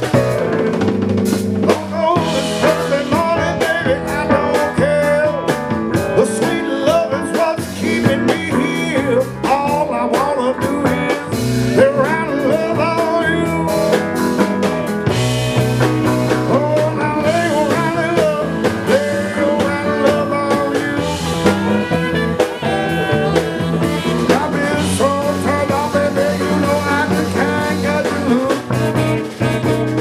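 A live band playing a song with a drum kit and guitar.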